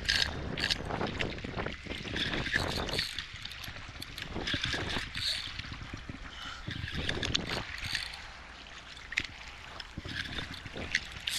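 Water sloshing and splashing with wind on the microphone, mixed with the scraping and clicking of a spinning reel being cranked against a hooked fish. The sound is irregular, with many short crackles.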